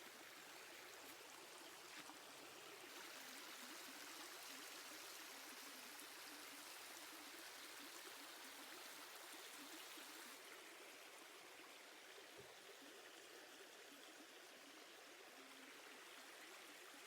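Faint, steady rush of a flowing stream, a little stronger in the middle.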